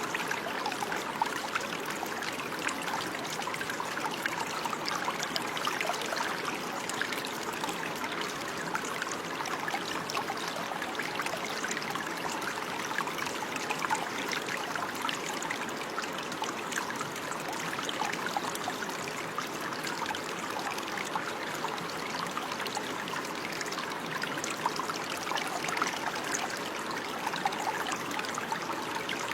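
Running water, steady and unbroken, with a fine bubbling and splashing texture like a small stream flowing over stones.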